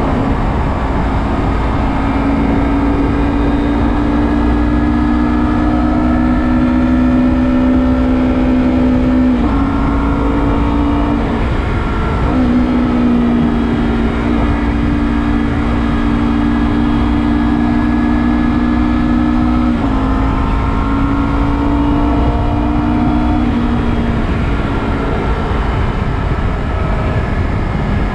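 Engine of a Honda CBR250RR parallel twin running at highway speed through an Akrapovic carbon slip-on muffler, over a strong low wind rumble. Its pitch climbs slowly and dips briefly a few times, about a third of the way in and again about two thirds of the way in, as the throttle is eased and reopened.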